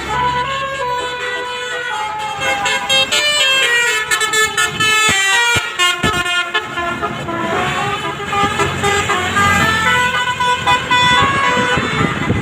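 Bus telolet horn playing quick runs of multi-tone notes that step from pitch to pitch, over a bus engine running. A few knocks come about halfway through.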